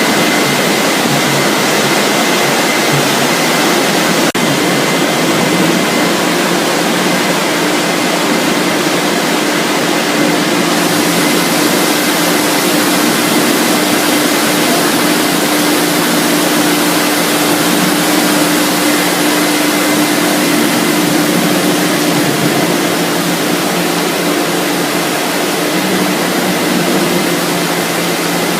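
Steady, loud noise of French fries processing-line machinery running, with a faint high whine and a low hum through it; the hiss grows brighter about ten seconds in.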